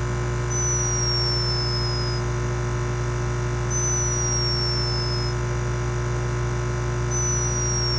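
A sleeping animal snoring with a high, thin whistle on each breath, falling in pitch, three times about three and a half seconds apart, over a steady electrical hum.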